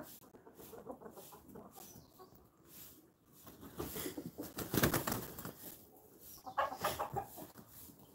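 Desi chickens clucking as they forage, with a louder rustling burst about five seconds in and a short run of calls near seven seconds.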